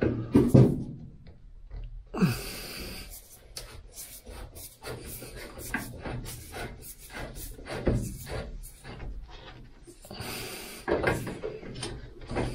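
Screw being undone from the steel C-pillar of a VW T2 Bay camper, with a screwdriver on the head and a spanner holding the nut behind. It makes small metal clicks and scrapes throughout, with a longer rubbing scrape about two seconds in and another near the end.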